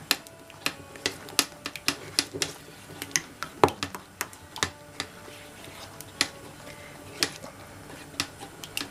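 A utensil stirring a thick sauce in a stainless steel bowl, knocking and clicking against the metal sides in irregular ticks, two or three a second.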